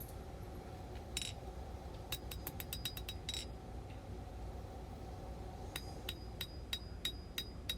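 Light hammer taps on a hot 1095 high-carbon steel knife blade resting on an anvil, each tap ringing briefly with a high metallic tone. The taps come as a few scattered strikes and then a quicker run of them near the end, as the blade is straightened at the handle-to-blade transition.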